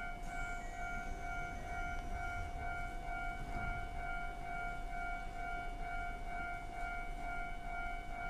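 Steady electronic whining tone with a second, higher tone beeping on and off a little over twice a second, over a low background rumble on the station platform.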